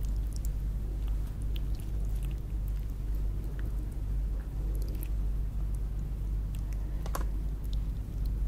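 Close-up chewing and biting of lobster, with many small wet mouth clicks and one sharper click about seven seconds in, over a steady low hum.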